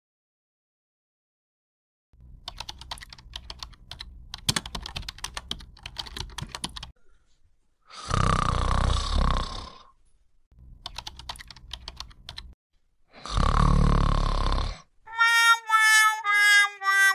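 Computer keyboard typing in two stretches, each followed by a loud snore of about a second and a half. Near the end, a short tune of held notes, stepping down in pitch.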